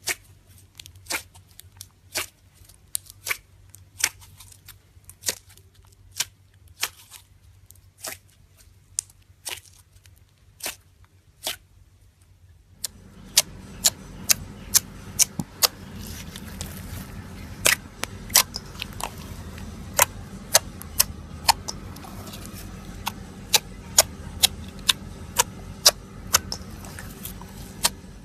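Slime being worked by hand, giving sharp popping clicks about one or two a second. About halfway through, a steady low rumbling noise joins in and the pops come faster.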